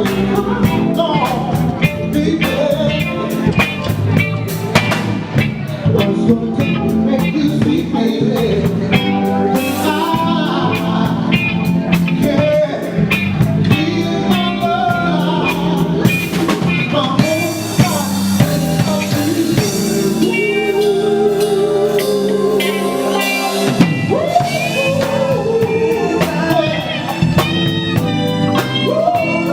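Live band playing a bluesy soul groove: drum kit with rimshots, keyboards and guitar, played steadily throughout.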